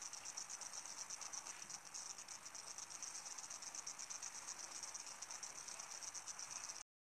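Faint crickets chirping in a steady, high, fast-pulsing trill. The sound cuts out completely near the end as the live-stream audio drops.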